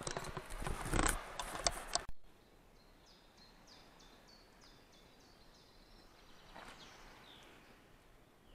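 A loud crackling, rustling burst for about two seconds that stops abruptly. Then woodland birdsong: a quick run of about a dozen short high notes, and a little later a single falling whistle.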